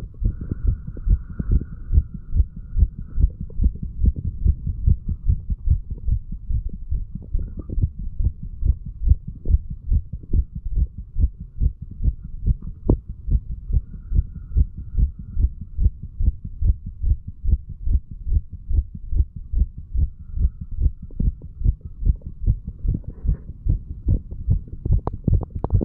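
A 35-year-old man's heartbeat recorded at the chest, beating in a steady, regular rhythm of low thuds. He recorded it while under the influence of alcohol.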